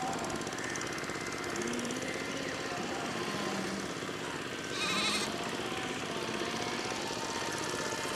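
An approaching electric express train, hauled by a WAP-7 locomotive and still some way off, gives a steady, rapid rattling noise. A short, high, warbling call sounds about five seconds in.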